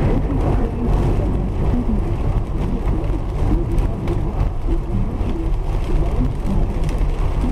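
Steady road noise inside a car driving on a rain-soaked highway: low engine and tyre rumble on the wet road, with rain on the windshield.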